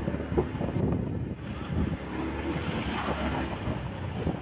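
Wind rushing over the microphone of a moving motorcycle, a steady low rumble with engine and street traffic noise underneath.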